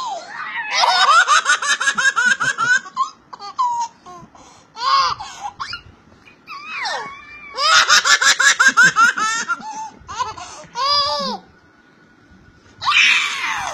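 An 11-month-old baby's belly laughter, in fits of rapid, pulsing laughs. The two longest fits come near the start and about halfway, with shorter bursts between them and another near the end.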